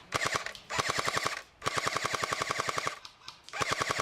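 Airsoft rifle firing on full auto in four bursts, at about thirteen shots a second, with a mechanical whine under the rapid clicks. The longest burst lasts over a second, and the last starts near the end.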